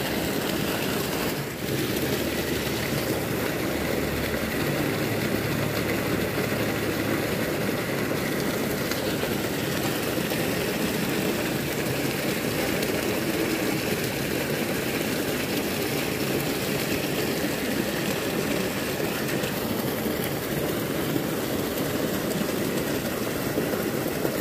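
Stream water pouring steadily over a small weir, a continuous rushing.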